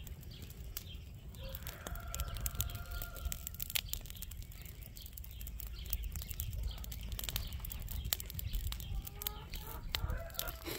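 Dry grass and brush burning with scattered sharp crackles and pops. Chickens call in the background: one drawn-out call about two seconds in and a few short clucks near the end.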